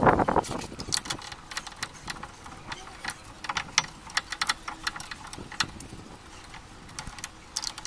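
C-clamp screw being turned by hand against a car's front brake caliper, with many irregular small clicks and ticks as it presses the caliper piston back to make room for new brake pads.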